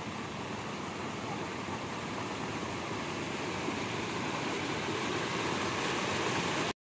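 Steady rain falling, an even hiss that grows slightly louder toward the end and cuts off abruptly at the very end.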